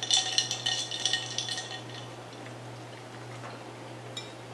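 Ice cubes clinking and rattling against a drinking glass for about the first two seconds as it is lifted and tilted, then a single light click near the end.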